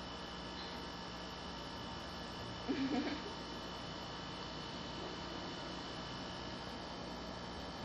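Steady electrical mains hum with a faint hiss, and one brief short sound about three seconds in.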